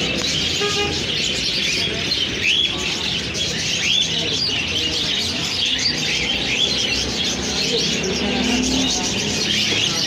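A roomful of caged small birds, finches and budgerigars, chirping and twittering all together without a break. A few sharper upward-sweeping calls stand out about three and four seconds in.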